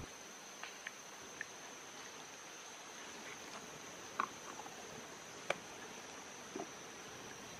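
Steady high-pitched drone of insects in the forest, with a few scattered short clicks and taps.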